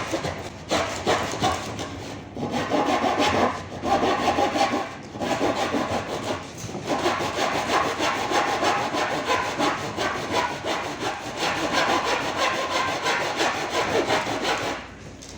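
Hand saw cutting through a wooden board in quick, steady strokes, pausing briefly a few times in the first seven seconds and once more near the end.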